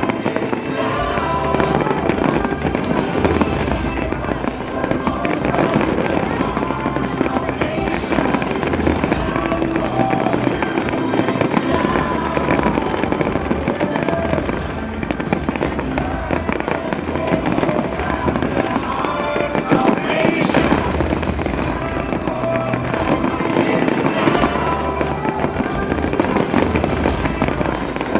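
Fireworks bursting and crackling continuously over a fireworks show, with show music playing alongside.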